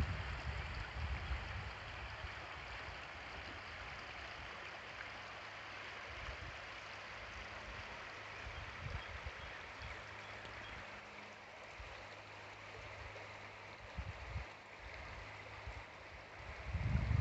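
River water rushing over a shallow riffle and gravel bar: a steady, even wash, with irregular low rumbles now and then, strongest near the end.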